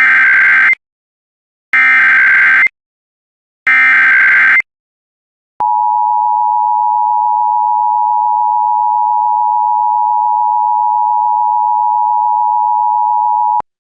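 Emergency Alert System SAME header: three raspy digital data bursts, each about a second long and a second apart, followed after a short gap by the two-tone EAS attention signal (853 and 960 Hz), a steady tone held for about eight seconds that cuts off sharply near the end. Together they announce an incoming emergency alert.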